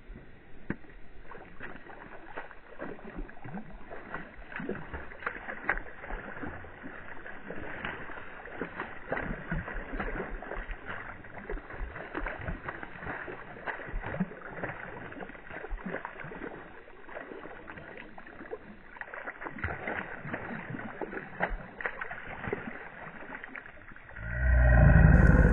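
A hooked brook trout splashing and thrashing at the water's surface as it is played and netted, with many irregular small splashes and clicks. A brief loud low rumble comes near the end.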